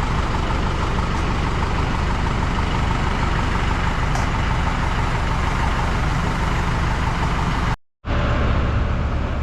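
Stripped-down Polaris RZR side-by-side running steadily as it is driven over rough ground. The sound cuts out abruptly for a moment about eight seconds in, then resumes with a heavier low rumble.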